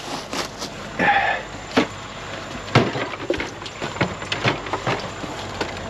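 Irregular clatter of household items being handled and packed into a plastic milk crate: a thermos, a jug and cans knocking against each other and the crate, with a brief rustle about a second in.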